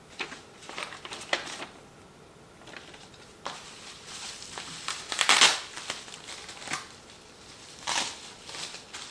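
Product packaging being handled and crinkled: a string of irregular rustles and crackles, loudest about five seconds in.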